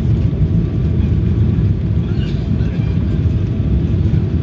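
Steady low rumble of airliner cabin noise: the jet's engines and airflow heard from inside the cabin.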